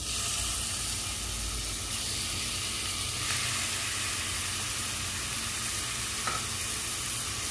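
Raw chicken mince sizzling in hot oil and lightly browned ginger-garlic paste in a frying pan: a steady frying hiss that jumps up as the mince goes in and then holds even.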